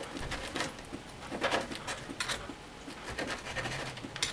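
Kitchen knife slicing through grilled chicken breast on a wooden chopping board: several short scrapes and taps as the blade cuts through and meets the board.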